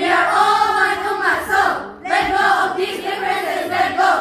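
A chorus of girls' voices in unison, delivered with the group's actions in two loud phrases of about two seconds each.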